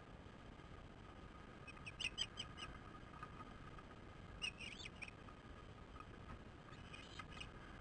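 Ospreys giving short, high whistled chirps in quick runs: a run of several about two seconds in, another short run a little before the middle, and a few more near the end. A faint steady hum lies under the calls.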